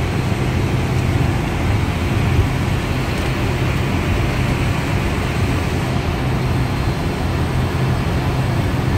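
ATR 72-600's Pratt & Whitney PW127M turboprop engines and propellers running, heard inside the cockpit as a steady low hum over an even rushing noise while the aircraft rolls along the runway after landing.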